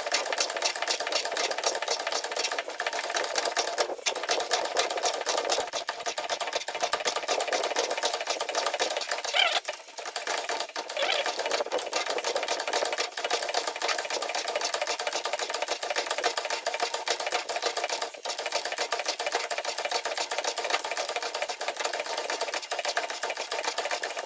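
Metal lathe running under power, its gears giving a fast, even mechanical clatter.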